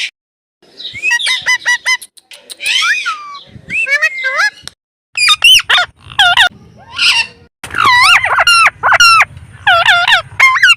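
Indian ringneck parakeet giving a run of loud, short squawking calls, each sharply bent in pitch, coming in quick clusters after a brief pause at the start.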